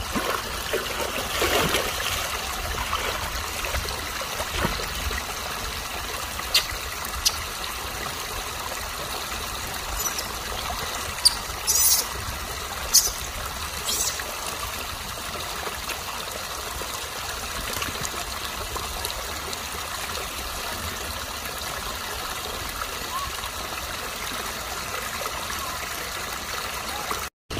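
Shallow stream water running and trickling steadily over rocks, with a few brief sharp clicks about halfway through.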